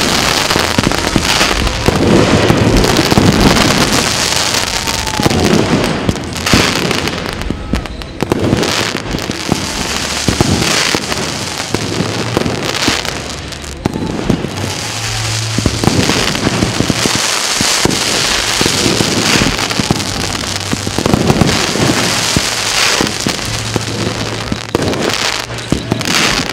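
Fireworks display in a dense, continuous barrage: many bangs and crackles, with a few short whistles.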